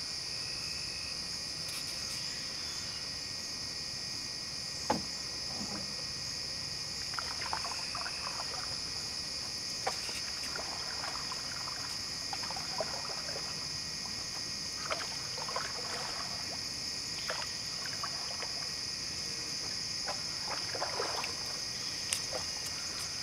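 Steady chorus of crickets and other insects, with the splash and drip of canoe paddle strokes every few seconds and a few sharp knocks, the clearest about five seconds in.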